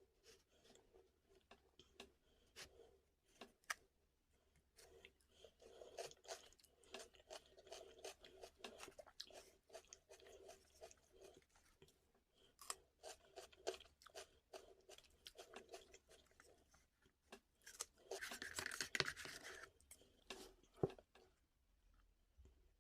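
Close-up chewing with scattered mouth clicks and soft crunches, and one louder crunchy burst about eighteen seconds in.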